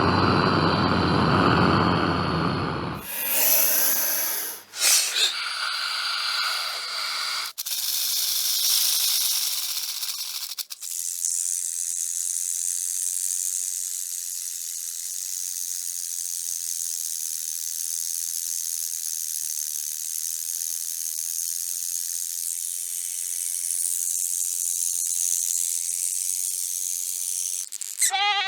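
Reptile hissing: a string of separate hisses, the first loud and full-bodied, with abrupt changes between them, then a long steady high-pitched hiss that runs on for about seventeen seconds.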